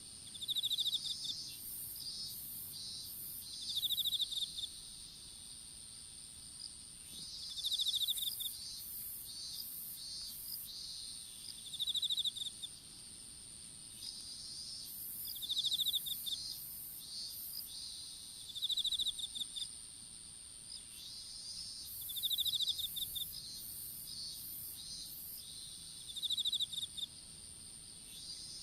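Insects calling in a field: a steady high-pitched trill, with loud bursts of rapid chirping pulses repeating about every four seconds.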